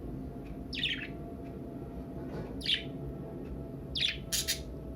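Pet budgerigars chirping: short high calls about a second in and again near three seconds, then a quick cluster of chirps near the end.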